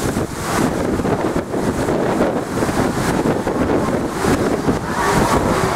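Wind buffeting the microphone over the steady rush of stormy sea waves breaking against a sea wall.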